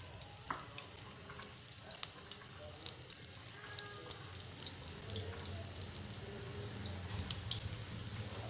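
Egg-coated potato patties (aloo tikki) shallow-frying in hot ghee on an iron tawa: a steady sizzle with dense, scattered crackles and pops.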